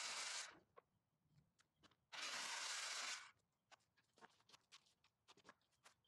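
Circular saw cutting through a pecan slab in two short spells, the first ending about half a second in and the second from about two to three seconds in, with scattered light knocks and taps of wood being handled between and after.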